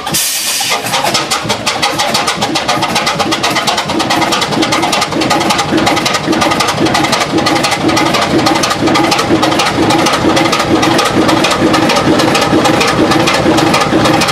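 Allen 6S37 six-cylinder diesel engine running just after starting, a fast even beat of firing pulses that grows a little louder over the first few seconds and then holds steady. A brief hiss right at the start.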